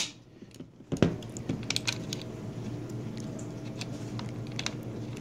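Metallic clicks and handling rubs from a Ted Williams semi-automatic .22 rifle's action as its bolt is pulled back and dropped into its notch to lock it open, with one sharp click about a second in and lighter clicks after.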